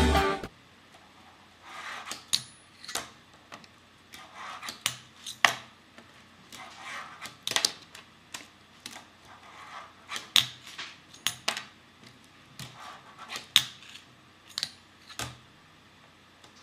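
Packaging and a small part being handled and unpacked: an irregular series of sharp clicks and taps, with short rustling stretches between them.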